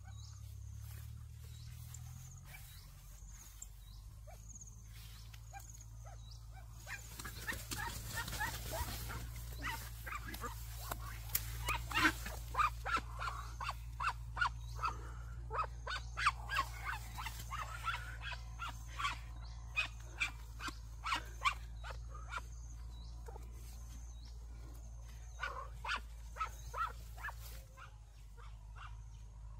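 Animal calls: a run of short, sharp calls starting about seven seconds in, over a steady low hum.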